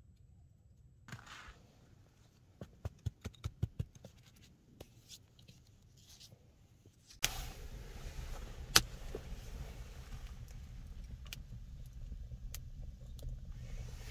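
A run of short crunching clicks as snow is packed by hand, then a wood fire burning in a small earthen fireplace: a steady low rustle with scattered sharp crackles and one loud pop.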